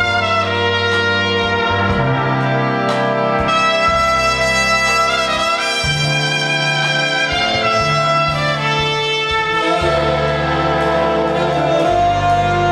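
Solo trumpet playing a slow, held melody over a live big band accompaniment of saxophones and brass, with low sustained notes changing every couple of seconds.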